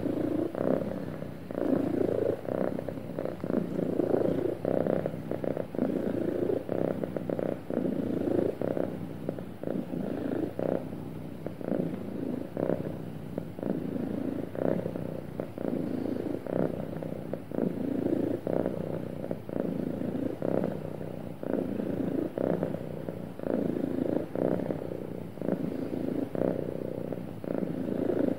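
Contented domestic cat purring steadily, the purr swelling and fading in a regular rhythm every second or two.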